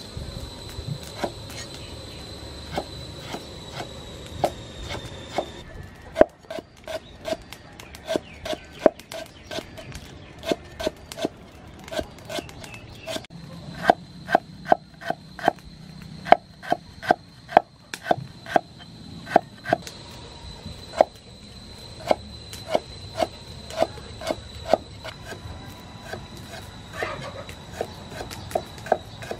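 Cleaver slicing and chopping a lemongrass stalk on a thick round wooden chopping block: sharp knocks of the blade on the wood, irregular at first and quicker, about two or three a second, in the middle.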